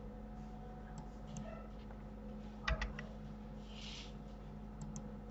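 Computer mouse and keyboard clicks: a few scattered clicks, with a louder cluster of clicks near the middle, over a steady low electrical hum. A short soft hiss comes about four seconds in.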